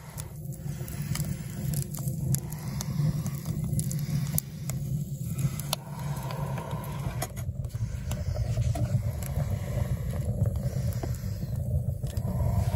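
Wood fire burning in a sheet-iron Shasta tent stove: scattered sharp crackles and pops over a steady low rumble.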